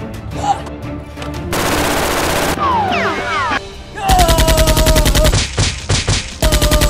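Machine-gun fire sound effects in rapid bursts of about ten shots a second, the loudest burst about four seconds in and another near the end, over background music.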